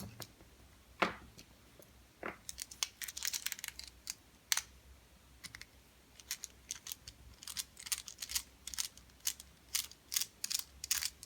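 Light, irregular metallic clicks and ticks of lock-picking tools working the pins in a Squire SAL/40 padlock's cylinder. A few sharper clicks come in the first half, then lighter ticks follow more quickly.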